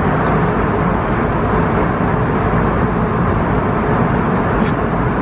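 Steady airliner cabin noise from the jet engines and rushing air, heard inside the passenger cabin.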